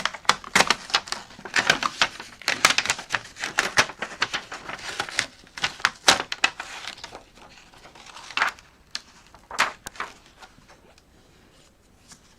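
Plastic covering being pulled and crinkled off the back of a laptop's integrated keyboard panel. A dense run of crackles and clicks lasts about seven seconds, followed by a couple of separate clicks.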